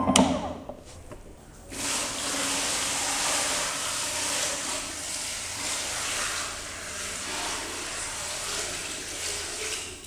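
Water pouring into a plastic washing tub and splashing as the homemade washing machine's pulsator churns it. The steady rush starts about two seconds in.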